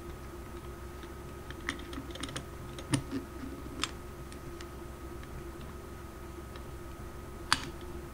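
Small steel parts of a mortise lock mechanism being fitted into the lock case by hand: scattered light metallic clicks and taps, the sharpest about three seconds in and another near the end, over a steady background hum.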